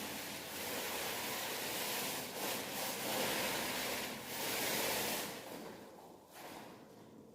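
Paint roller rolling wet paint onto a wall: a rushing hiss that swells and eases with each stroke, then dies away about five and a half seconds in.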